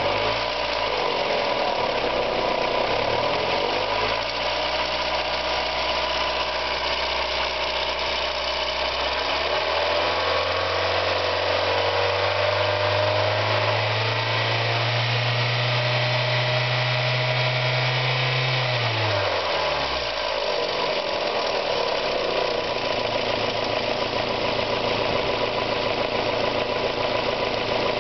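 Mazda Miata four-cylinder engine running, revved up in two steps and held at high rpm for about ten seconds, then dropping back to idle about two-thirds of the way through. It has a tick that fades away at high rpm and ticks loudly as the engine slows, which the owner suspects is a hydraulic lash adjuster (lifter) tick, rod knock or bearing failure.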